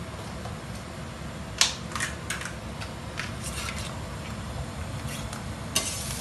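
A knife clicking and tapping against a plastic butter tub while butter is cut and dropped into a pan of broccoli: a few sharp clicks from about a second and a half in, a cluster of lighter taps around the middle, and more near the end.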